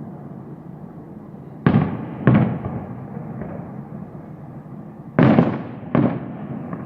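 Fireworks going off: four sharp bangs in two pairs, each dying away in a short rumble, over a steady background din.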